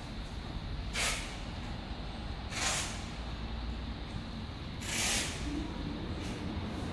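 Three short bursts of hissing, a second or two apart, over a steady low rumble.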